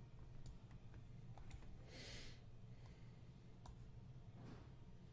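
Near silence: a steady low hum with a few faint, sparse clicks and a short hiss about two seconds in.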